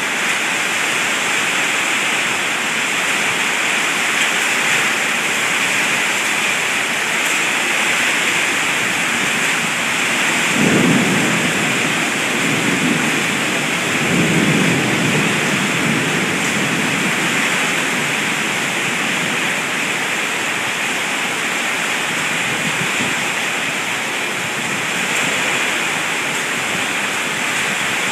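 Heavy rain pouring down steadily, with rumbles of thunder about ten seconds in and again a few seconds later.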